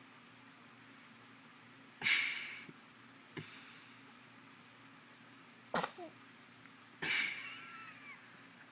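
A baby sneezing several times in short, sudden bursts, the strongest about two seconds in and again about seven seconds in, with smaller ones in between.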